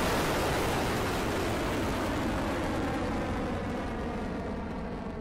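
Rocket Lab Electron's first stage, nine Rutherford engines at full thrust just after liftoff: a dense rushing rumble with no break in it. It slowly fades and loses its hiss as the rocket climbs away from the pad.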